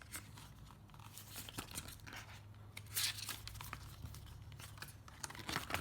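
Packaging rustling and crinkling as the charger is worked out of its box by hand, with scattered small clicks and a louder burst of handling about three seconds in and again near the end.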